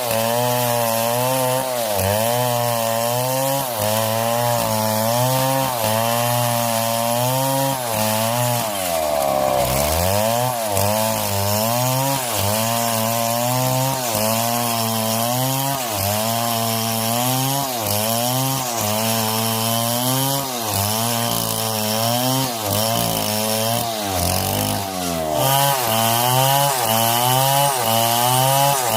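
Chainsaw cutting through wood, its engine pitch dropping and recovering about once a second as the chain is worked in the cut. Twice, about a third of the way in and again near the end, the revs sag lower before picking back up.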